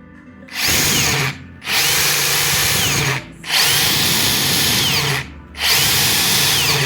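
Makita 40V cordless impact wrench run free in four trigger bursts, each spinning up and winding down, with a loud vibrating rumble. The owner first suspected the motor bearing or bushing; the noise is put down to a lack of grease in the impact mechanism and gears.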